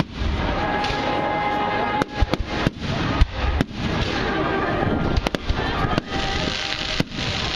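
Fireworks going off: a rapid, irregular series of sharp bangs over a continuous crackle.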